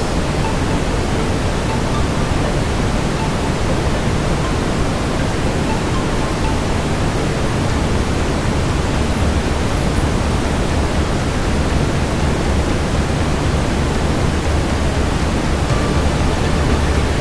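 Steady brown noise: an even, deep hiss, heaviest in the low end, that does not change.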